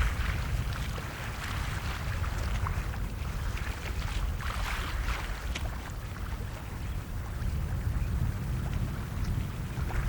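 Wind and sea ambience: a steady low rumble of wind with a hiss like surf that swells and fades, flecked with small crackles.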